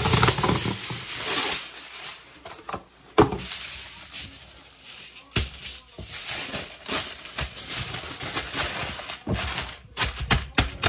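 Aluminium foil pulled from the roll and torn off, then crinkling and crackling in irregular bursts as it is folded and pressed tightly by hand, with one sharp crackle about three seconds in.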